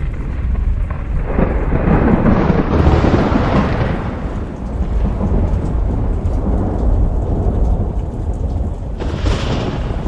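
Thunderstorm: a continuous low thunder rumble over steady rain. The thunder swells into a loud peal starting about a second and a half in and peaking around three seconds. A shorter burst of thunder comes near the end.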